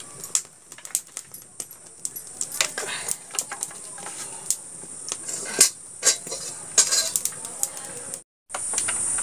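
Irregular clicks and knocks of firewood sticks being shifted and pushed into a wood-fired clay stove under a steel wok, with the fire crackling. A steady high chirring of crickets runs underneath.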